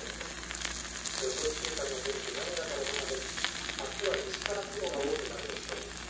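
Yakisoba, noodles with cabbage and pork, sizzling on a hot iron griddle: a steady frying hiss with frequent small crackles. Faint voices murmur underneath.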